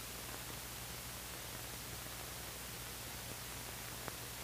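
Steady hiss with a low hum underneath, the background noise of an old film soundtrack with no voice on it; one faint click about four seconds in.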